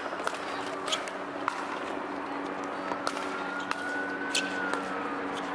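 Pickleball rally: paddles striking the hard plastic ball, a series of sharp pops roughly half a second to a second apart, over a steady low hum.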